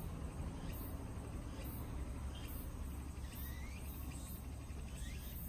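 Outdoor insects chirping in high-pitched pulses about once a second, over a steady low rumble, with a few faint rising chirps.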